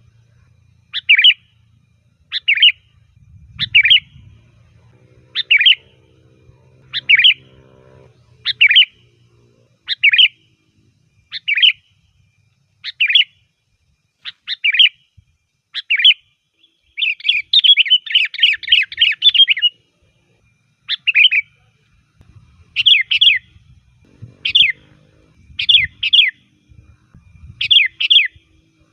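Sooty-headed bulbul (kutilang) calling: short, bright whistled phrases about every second and a half. About seventeen seconds in comes a rapid chattering run, and after that the phrases come doubled.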